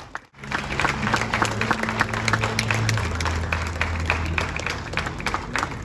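An audience applauding, a dense patter of many hands clapping, with background music holding low sustained notes underneath that shift down about halfway through.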